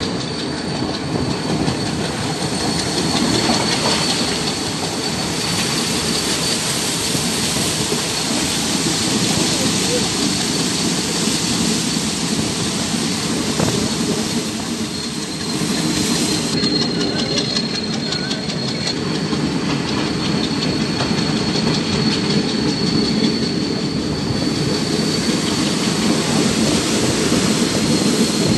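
Passenger train running at speed, heard from an open carriage window: a steady rumble and rush of air, with wheels clicking over the rail joints, most clearly a little past halfway.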